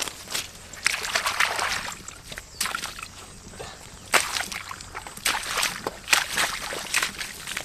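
Bare feet squelching and splashing through wet mud and shallow water, a run of irregular wet splashes as someone walks.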